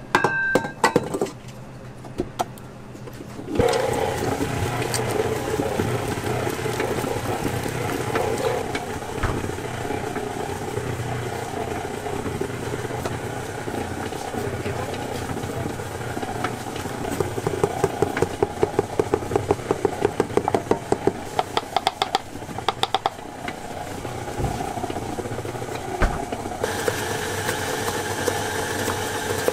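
A stainless-steel mixing bowl clanking as it is fitted to a KitchenAid Artisan stand mixer, then the mixer starting about three and a half seconds in and running steadily as it beats a thick creamy mixture. A rapid ticking comes through in the middle stretch, and near the end the sound changes as a higher steady tone joins the motor.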